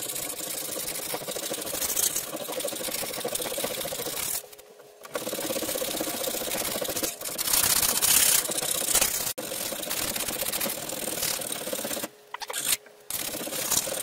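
Hand file scraping along the nicked steel edge of a rusty Collins double bit axe head clamped in a vise, taking the nicks out of the edge by hand. The filing runs steadily, with a short break about four seconds in and two brief breaks near the end.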